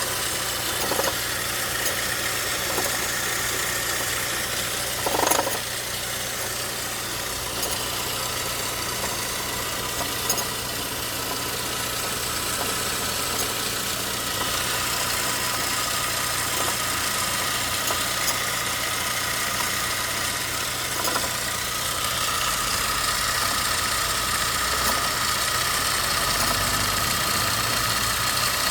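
An engine running steadily, with a brief louder sound about five seconds in.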